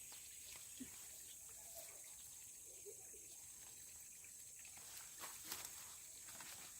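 Near silence: a steady low hiss with a few faint clicks and taps.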